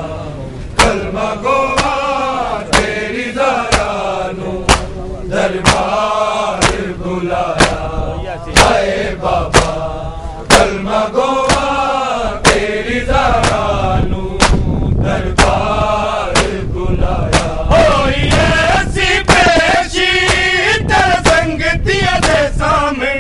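Group of men chanting a noha, a Shia lament, in unison, with sharp slaps of matam chest-beating keeping a steady beat about once a second.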